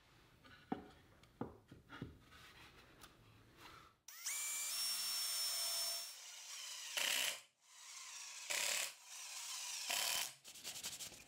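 Handheld drill spinning up and running steadily for about two seconds as it bores a pilot hole in a wooden drawer side, then several short bursts of the drill driving screws, ending in a rapid ticking.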